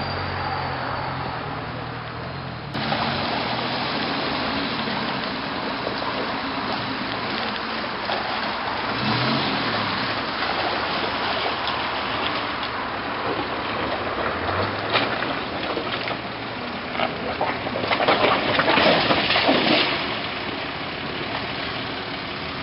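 Off-road engines working in deep mud: first briefly a Suzuki Samurai climbing a rutted gully, then, after a cut, a Mercedes-Benz Unimog running as it wades through muddy water. The Unimog's tyres churn and splash, loudest in a burst of sloshing about three-quarters of the way in.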